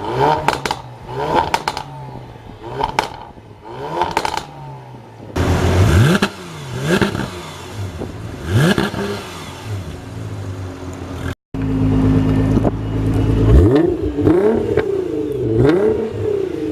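Car engines revved hard through their exhausts in repeated blips, the pitch sweeping up and falling back again and again. There are a few sharp cracks near the start, and the sound jumps abruptly twice as it moves from one car to another.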